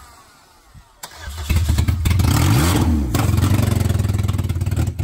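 Demolition-derby car's engine cranking on the starter in an evenly pulsing, steady rhythm. The cranking starts about a second in after a quiet moment, as another start is tried with fuel in doubt after the car's gas tank tipped over.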